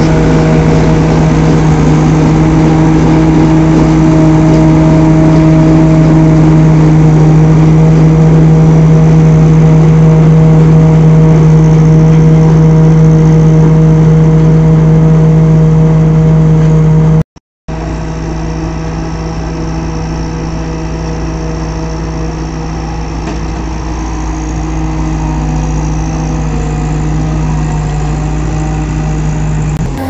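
Kartar Hurricane combine harvester's diesel engine and machinery running steadily under load, a loud even hum. The sound breaks off briefly about 17 seconds in and carries on quieter.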